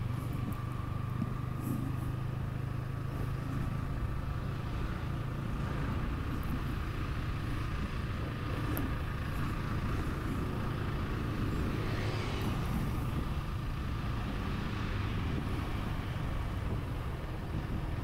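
Motorcycle engine running at a steady pace while riding, with a constant low hum of engine and road noise.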